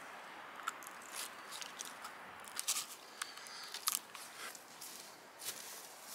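Irregular small crackles and scrapes of a thin cord being wrapped and pulled tight around a tree trunk, rubbing on the bark as it is handled, over a faint steady hiss.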